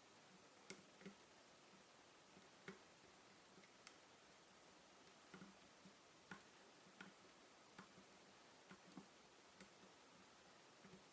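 Faint, irregular light metallic clicks of a lock pick and tension tool working the pins of a Mul-T-Lock MT5 pin-in-pin lock cylinder, about one or two clicks a second, the sharpest under a second in.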